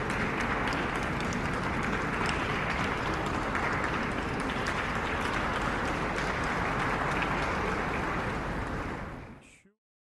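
Large audience applauding, a dense, steady patter of clapping that fades out near the end.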